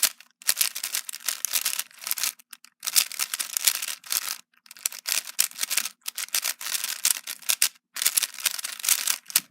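Qiyi Mini Thunderclap 4x4 speedcube being turned fast: rapid runs of plastic clicking and clacking from the layers, in several bursts with short pauses between.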